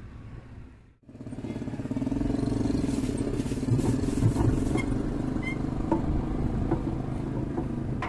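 A motor running steadily, starting about a second in, with scattered clicks over it.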